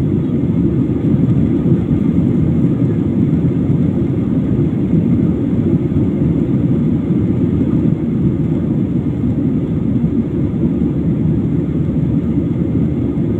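Steady engine and airflow noise of a passenger airliner, heard from inside the cabin, deep and unchanging.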